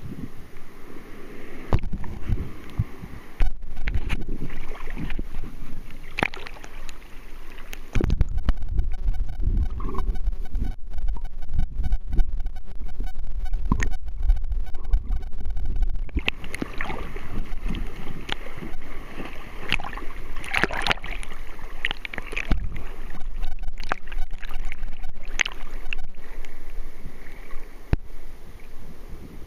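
Seawater sloshing and splashing against a handheld camera at the surface, with short clicks and splashes. From about 8 to 16 seconds in the camera is under water and the sound turns to a muffled low rumble, then goes back to surface splashing.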